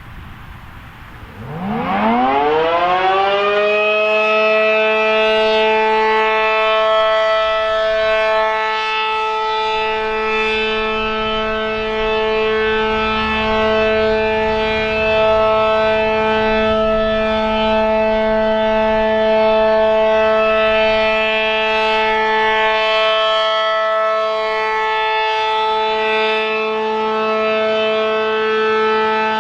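ACA Allertor 125 outdoor warning siren with a Penetrator horn and an 8/12-port rotor sounding its Alert signal. About a second in it winds up from a low growl to full pitch over roughly two seconds, then holds a loud, steady chord of two tones.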